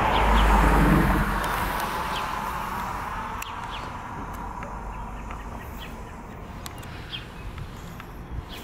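A vehicle passes, loudest about a second in, and its sound fades away over the next several seconds. Birds chirp throughout.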